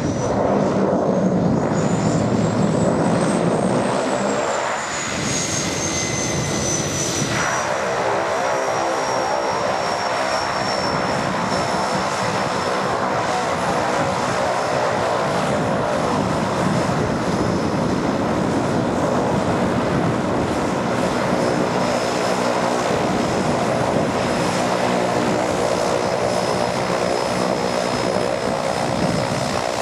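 Turbine-converted de Havilland DHC-2 Beaver floatplane's turboprop: a high turbine whine over the propeller's drone. A rush of water spray from the floats fills the first few seconds as the plane runs on the step. The whine rises, then slides down in pitch over the first ten seconds and holds steady as the plane slows to a taxi.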